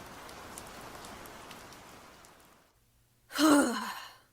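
Rain hiss fading out over the first two and a half seconds, then a person's sigh, loud and falling in pitch, about three seconds in.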